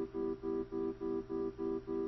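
Background music: a guitar repeating the same chord in an even rhythm, about three to four strums a second.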